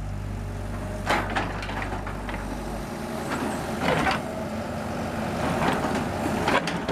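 Excavator diesel engine running with a low hum that drops away about three seconds in, while the bucket knocks and scrapes against concrete four or so times.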